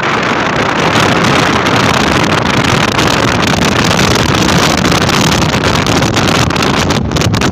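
Strong storm wind buffeting the microphone: a loud, steady rush of noise.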